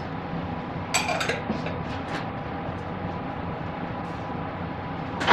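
A sake bottle being opened by hand: a glassy clink about a second in, a few light ticks, then a sharp click near the end as the cap comes free.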